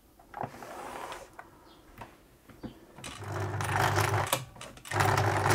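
Singer Futura 1000 electronic sewing machine's motor running at a bit low speed, in two runs of about a second each in the second half, after a few clicks.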